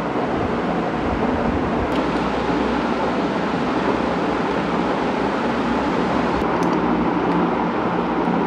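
A steady, even background noise with a faint low hum underneath, and a few faint light clicks about two seconds in and again around seven seconds.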